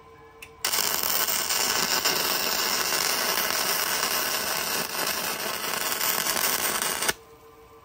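Flux-core wire-feed (MIG) welding arc crackling steadily as one bead is run on steel. It starts abruptly about half a second in and cuts off about a second before the end. He is welding the parts solidly this time, after tack welds failed.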